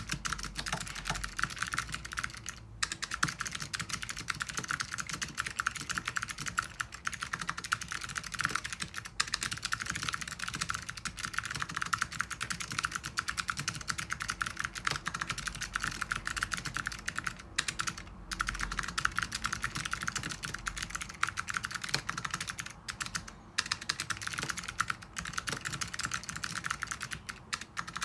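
Steady fast typing on the PC whale mechanical keyboard with clicky Alps SKCM Blue switches on a carbon plate: a dense stream of sharp key clicks. The stream breaks off for a moment a few times.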